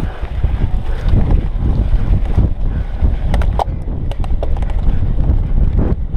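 Wind buffeting the microphone as a cyclocross bike rolls fast over a bumpy grass-and-dirt track, with a steady low rumble and a few sharp rattling clicks from the bike about halfway through.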